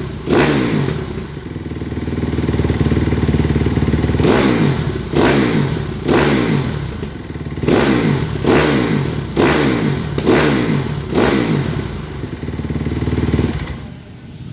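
Kawasaki KX 250 motocross engine running, freshly rebuilt and being warmed up, with about nine short throttle blips that each fall back to idle. The engine cuts off near the end.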